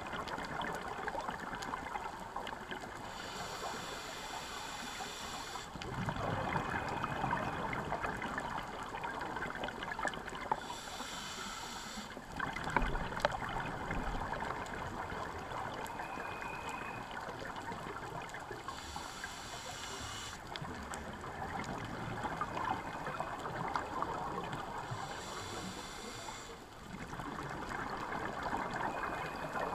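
Scuba diver breathing through a regulator underwater: four slow breaths, each a short hiss of inhalation followed by a longer rush of exhaled bubbles.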